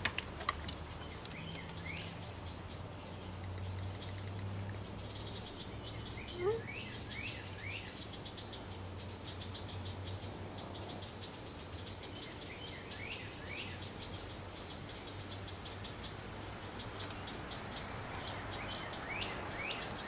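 Outdoor ambience: a steady, rapid high-pitched pulsing of insects, with short bird chirps now and then.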